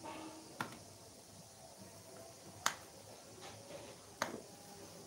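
Three sharp plastic clicks as a hand presses the power buttons on small toy folding quadcopter drones.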